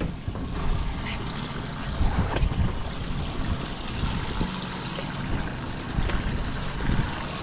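Wind buffeting the microphone over water lapping against the hull of a boat on open sea.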